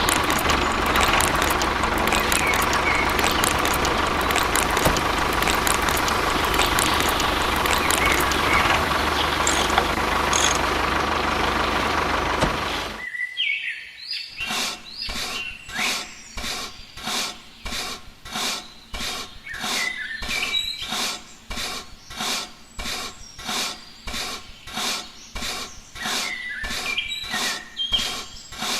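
A small motor runs steadily with a high whine for about 13 seconds, then stops abruptly. After that comes a regular rubbing or scraping stroke, about one and a half strokes a second, with birds chirping.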